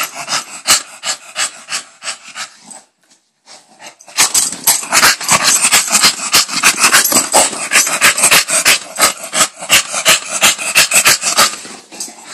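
Bulldog tussling with a blanket right at the microphone: dog breathing and vocal noises over fast rustling and knocks. There is a brief lull about three seconds in, then a dense run that eases off near the end.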